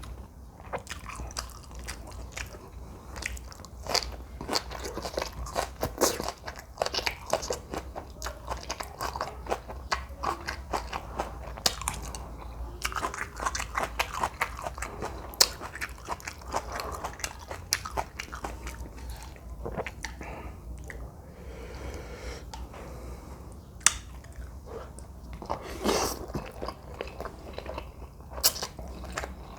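A person chewing and biting a mouthful of jjajangmyeon noodles with green onion kimchi and fried egg: a dense, irregular run of small clicks, smacks and crunches.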